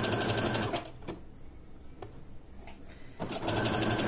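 Domestic electric sewing machine stitching a seam in jersey fabric with a rapid, even run of needle strokes. It stops about a second in, a single click sounds during the pause, and it starts stitching again near the end.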